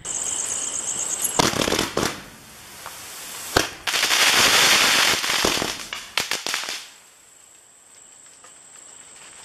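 Sony Fireworks 'Volcano' 30-shot firework cake firing all its shots at once instead of in sequence, a fault the owner puts down to an old product. A hissing rush with sharp bangs, loudest and densest with crackling about four to six seconds in, dying away about seven seconds in.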